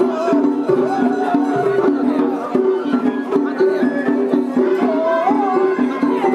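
Traditional Japanese festival music (matsuri-bayashi) with steady drumming and a melody over it.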